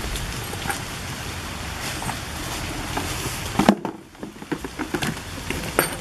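Light rain and wind noise, steady, with a low rumble and scattered small ticks of drops. A single sharp knock comes about two-thirds of the way in.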